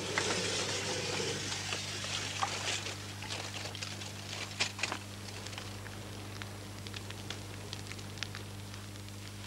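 Fire crackling, with scattered snaps and pops over a low hiss, louder in the first few seconds and then settling, over a steady low hum.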